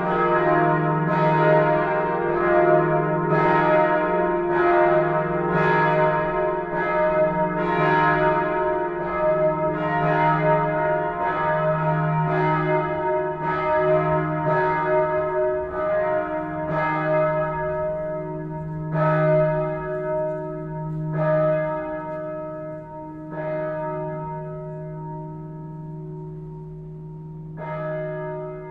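Neumünster church bells ringing together in a full peal, several pitches overlapping with long humming tones. Past halfway the strokes thin out and the level falls as the peal is brought to a stop, with one last stroke near the end.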